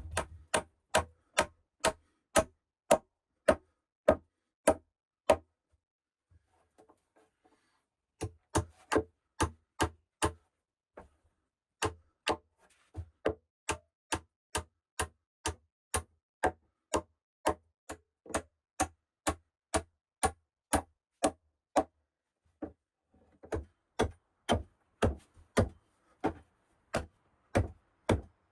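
Hand-tool blows on rough wooden floor planks, a hammer and a hatchet, struck steadily about two a second in four runs with short pauses between, each blow a sharp knock with a short woody ring.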